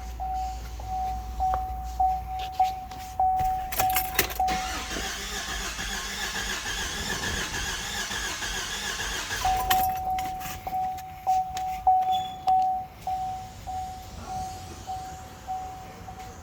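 A dashboard warning chime beeps steadily about twice a second. Then, for about five seconds, the 2014 Chevrolet Silverado's 4.3 L V6 cranks on the starter without firing, its fuel pump fuse pulled. The chime resumes when the cranking stops.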